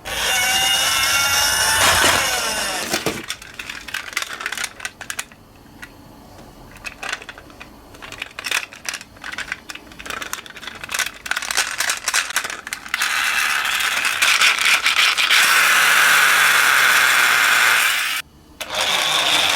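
Toy minicars' electronic siren wailing for the first few seconds. Then come many small clicks, clatters and rattles of toy cars rolling and knocking down a slope, and later a loud steady rolling rush, briefly cut off near the end.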